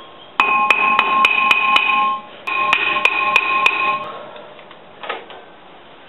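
Hammer blows on a rusted-on front brake rotor of a 2008 Nissan Versa, about three strikes a second in two runs, the cast-iron rotor ringing after each hit. The rotor is seized to the hub by rust and is being knocked loose.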